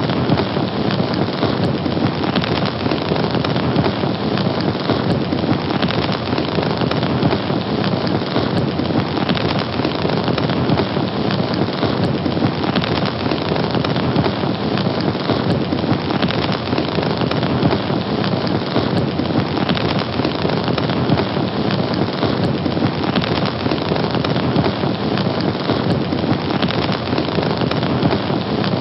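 Fire burning with a steady, dense crackle and hiss.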